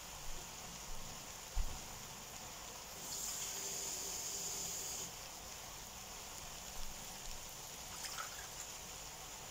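Water running briefly, a soft steady hiss lasting about two seconds, with a few faint light knocks of kitchen utensils.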